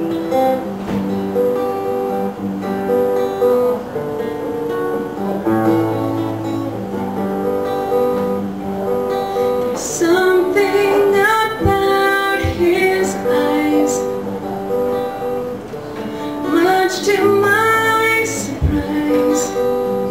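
Acoustic guitar strumming chords in a steady rhythm; a woman's singing voice comes in about halfway through.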